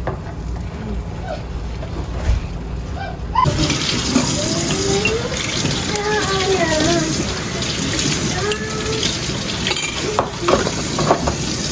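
Kitchen water running steadily, starting suddenly about three and a half seconds in, while water is being prepared for hot chocolate.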